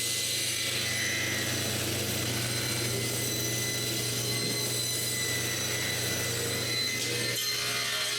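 Power saw running steadily, cutting a basswood log along marked lines, with a constant low hum and a thin high whine.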